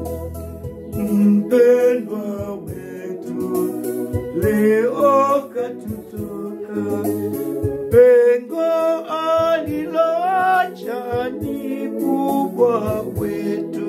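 Two men singing a song together, accompanied by sustained electronic organ chords with a low bass line.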